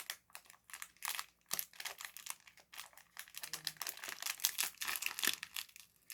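Plastic snack wrapper crinkling as it is handled, a quick irregular run of crackles.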